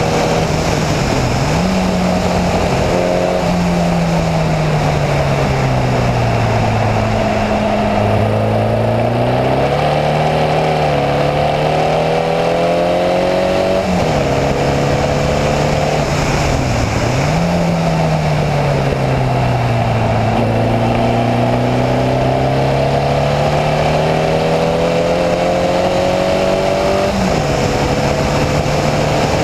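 Formula Vee race car's air-cooled Volkswagen flat-four engine heard from the cockpit at racing speed, under wind and tyre rush. The engine note falls as the car slows, then climbs steadily. Its pitch drops suddenly at two upshifts, about halfway through and near the end.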